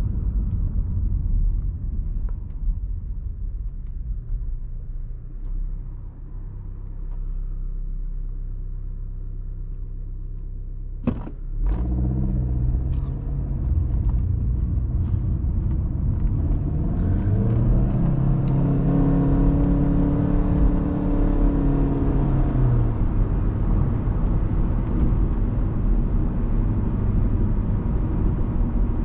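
Inside a 2016 Honda Civic: engine and road rumble easing as the car slows, with the engine running steadily at low revs. A sharp knock about eleven seconds in, then the engine note rising as the car accelerates through a turn up to about 55 mph. It settles into steady cruising with low tyre and road rumble.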